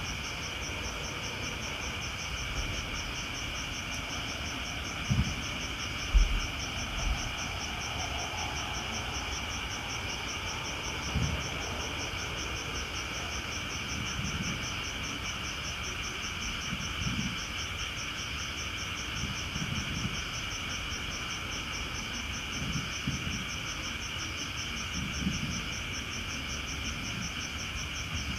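Night chorus of crickets and frogs calling together: a steady, fast-pulsing insect trill high up over a continuous chorus lower down. Scattered low thumps come through, the loudest about five and six seconds in.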